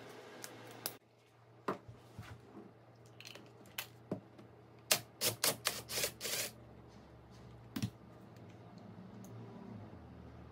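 Small hard parts or tools being handled: scattered sharp clicks and taps, with a quick run of about six louder clicks a little past the middle, over a faint steady low hum.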